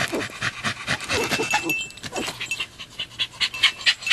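A Jagdterrier panting rapidly, many short breaths a second.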